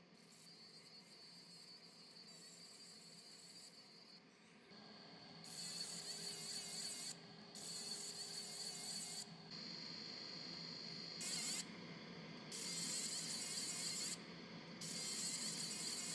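A JPT 50 W fiber laser engraves a gold-tone metal heart locket with a thin, high-pitched buzzing hiss. The hiss is faint at first. From about five seconds in it comes in passes of a second or two each, stopping and restarting about six times as the laser marks each part of the text.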